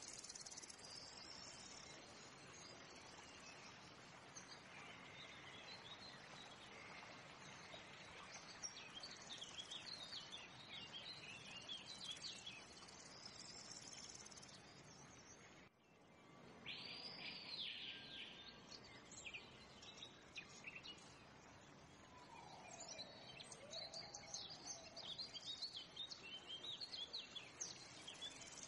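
Faint nature ambience: birds chirping and calling over a steady background hiss, with a brief drop-out about halfway through.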